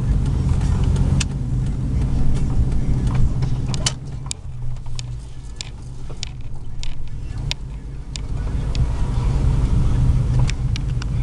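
A 2000 Chevy Silverado's 4.8-litre V8 and its exhaust heard from inside the cab: a steady low drone while driving, easing off about four seconds in as the truck slows, then building again. Light clicks and rattles come and go on top.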